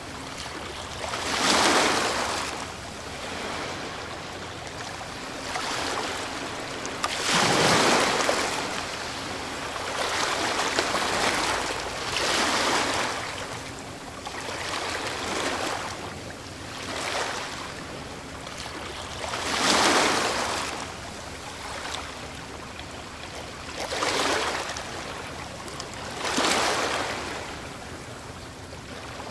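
Ocean waves breaking and washing up a shore, one surge every few seconds, each swelling and then fading back into a steady wash of surf.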